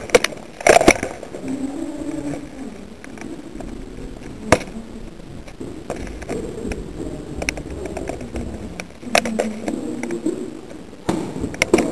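Scattered sharp clicks and knocks: a few near the start, one clear single click about four and a half seconds in, and more towards the end, over a faint, wavering low background.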